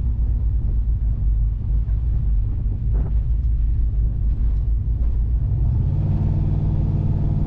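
Turbocharged LSA V8 in a 1987 Chevrolet Caprice running as the car drives slowly, heard from inside the cabin as a low uneven rumble. About six seconds in the engine note settles into a steadier drone.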